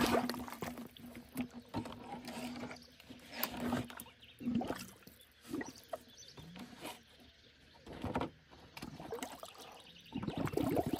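Pool water sloshing and gurgling in irregular bursts as a plastic chlorine-tablet container is pushed under the surface and fills with water.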